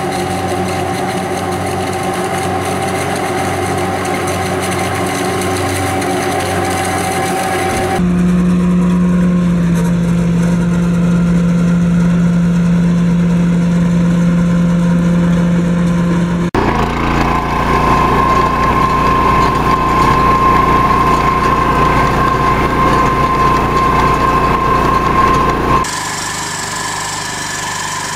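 Farm machinery engines running steadily, heard across clips that change abruptly about 8, 16 and 26 seconds in. The machines are a forage harvester working standing maize, a tractor with a Krone maize header, and near the end the small engine of a walk-behind cultivator.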